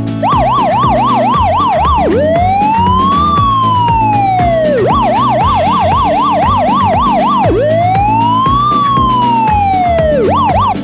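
Electronic emergency-vehicle siren switching between a fast yelp of about four sweeps a second and a slow wail that rises and falls over a couple of seconds, repeating twice, loud over steady background music.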